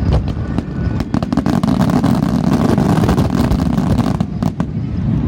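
Fireworks crackling and popping over a continuous low rumble.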